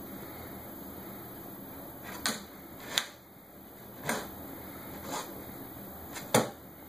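A puppy pawing at a computer monitor: a handful of sharp knocks and taps at irregular intervals, the loudest near the end, over a steady low hum.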